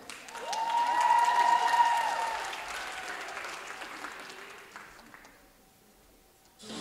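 Audience applauding, with a drawn-out cheer over the clapping. It builds in the first second and dies away by about five seconds in. Music starts right at the end.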